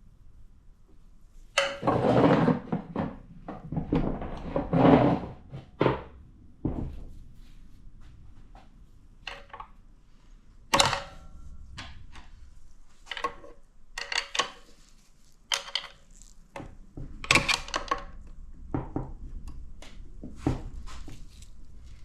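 Metal transmission parts being handled during a teardown: irregular clunks and clatter, heaviest in the first few seconds, with a few sharper metallic knocks that ring briefly later on.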